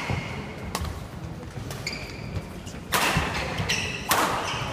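Badminton doubles rally: rackets striking the shuttlecock in sharp cracks, with shoes squeaking briefly on the wooden court. Near the end, as the rally ends, the crowd breaks into applause.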